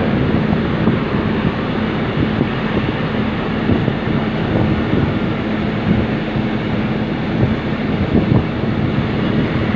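Wind rushing over the microphone on the move, with a steady low vehicle hum underneath.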